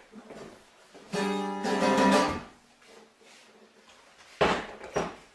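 An acoustic guitar strummed once. The chord rings and dies away, and near the end come two sharp strikes about half a second apart.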